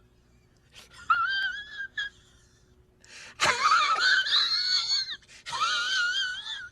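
A high-pitched, wavering wailing cry, heard three times, the middle one opening with a click and rising in pitch.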